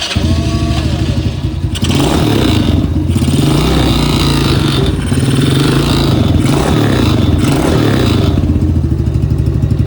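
ATV engine with a freshly fitted carburetor starting at once and running, with uneven throttle for the first several seconds before settling to a steady idle about eight seconds in, a rattle sounding over the engine.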